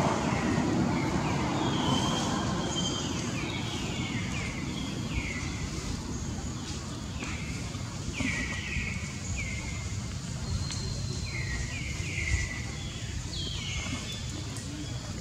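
Many short high-pitched chirping calls, each dropping quickly in pitch, repeated irregularly about once or twice a second, over a low rumble that fades away in the first couple of seconds.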